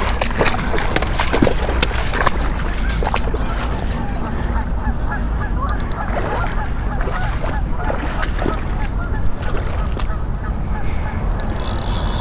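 A flock of birds calling, many short overlapping calls, thickest in the middle of the stretch, over a steady low rumble of wind on the microphone. A few sharp clicks come in the first seconds.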